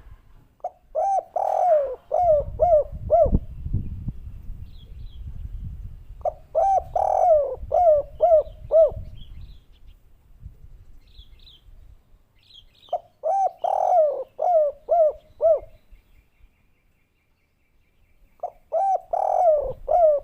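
Spotted dove (derkuku) of the 'kuk 3' song type cooing: four song phrases about six seconds apart, each a run of rolling coo notes ending in short separate 'kuk' notes, the last one starting near the end. A low rumble sits under the first two phrases.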